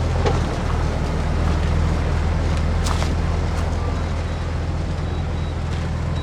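Heavy diesel engine of earthmoving machinery running steadily with a low drone, with a couple of brief clanks, one early and one about three seconds in.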